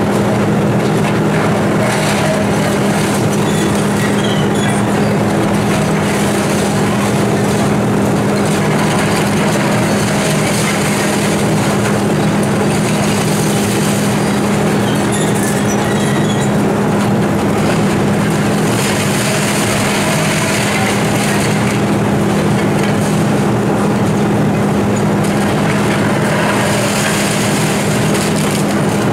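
Volvo EC290C excavator's diesel engine running steadily while its demolition attachment tears into a tiled roof. Crunching and clattering of breaking roof tiles and masonry comes and goes over the engine hum.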